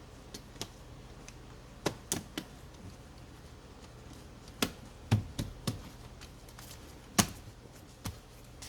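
Irregular sharp clicks and knocks of hard objects being handled, about a dozen in all, the loudest about seven seconds in, over a low steady hum.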